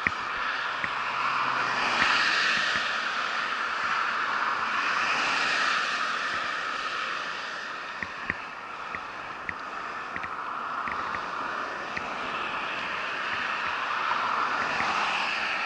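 Wind rushing over the microphone, mixed with tyre noise, as a bicycle rolls along at riding speed; the rush swells and eases. A few small clicks and rattles come in the middle.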